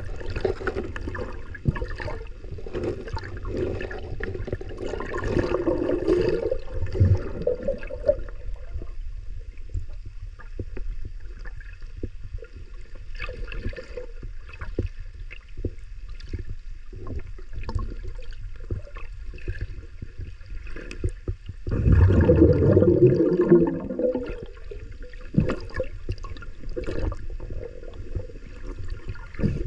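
Muffled underwater sound heard through a waterproof camera housing: steady low water noise with many scattered clicks, and two louder swirling surges, one around five seconds in and one a little past twenty seconds.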